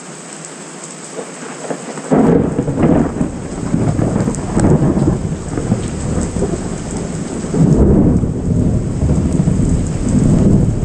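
Steady rain, then about two seconds in a loud peal of thunder breaks and rolls on in several swells of low rumbling over the rain.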